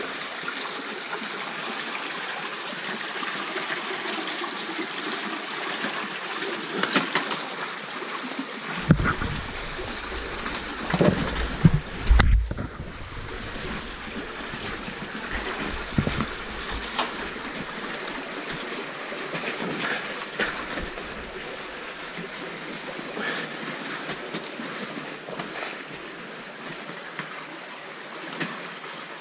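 Shallow creek trickling steadily over rocks, with a few low thumps and rumbles about a third of the way in; no engine running.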